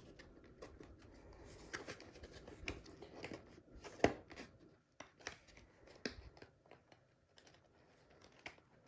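Faint handling of a cardboard box being opened by hand: scattered small clicks and scrapes with light rustling, the sharpest click about four seconds in.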